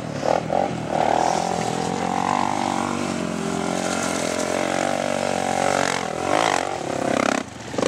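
Sport quad (ATV) engine running under throttle as the rider works across a dirt hill, its note wavering up and down as the throttle changes.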